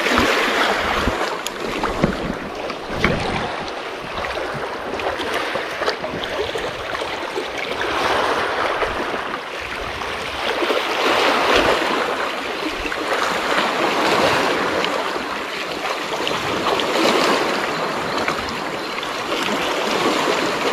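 Small sea waves lapping and washing over shoreline rocks, the wash swelling and easing every few seconds. A few knocks in the first seconds.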